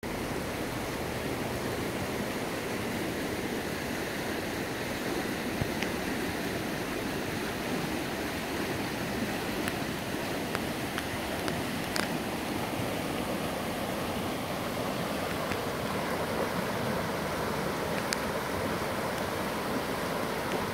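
A creek in flood after heavy rain: fast, turbulent floodwater rushing steadily. A few brief clicks come through it, the sharpest about twelve seconds in.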